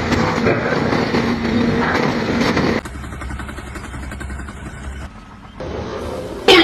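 An engine running loudly. About three seconds in it cuts abruptly to a quieter sound, and a sharp bang comes at the very end.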